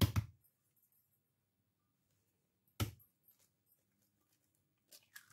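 Kitchen handling sounds in a quiet room: a sharp knock right at the start and another single knock about three seconds in, as of things set down on a worktop, then a crinkling rustle begins near the end.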